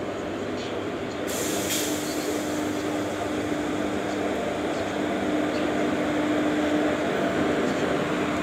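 Indian Railways electric locomotive pulling a passenger train toward the platform: a steady rumble with a faint hum, growing slowly louder as it nears. A short hiss about a second and a half in.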